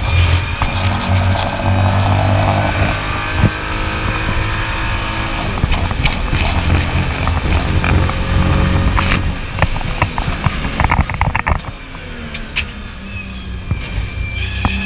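BMW M235i Racing's turbocharged straight-six running hard at racing speed, heard inside the cockpit. About eleven seconds in it eases off and goes quieter, with a run of sharp clicks, then pulls again, rising in pitch near the end.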